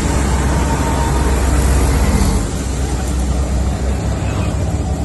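Auto rickshaw engine running as the three-wheeler drives along, heard from inside its open cabin with a steady low hum and road and wind noise. The engine note drops a little about halfway through.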